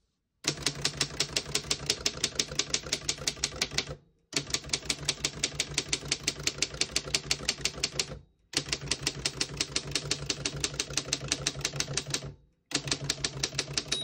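A 1935 Underwood No. 11 manual typewriter being typed on quickly. Its key strikes come as a fast, even clatter of about six or seven a second, in runs that stop briefly three times.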